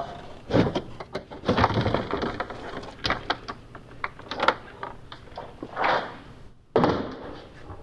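Large hard-plastic frunk tub of a Tesla Model X being lifted out of the car, knocking and scraping against the body in a string of irregular clatters, with a sharp knock near the end.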